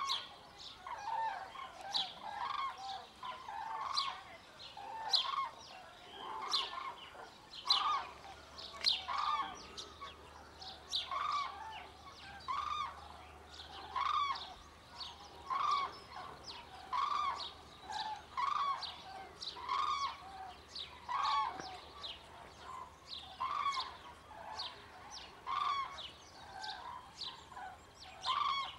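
A flock of common cranes calling in flight on spring migration: loud, rolling trumpeting calls from many birds, overlapping, roughly one a second throughout.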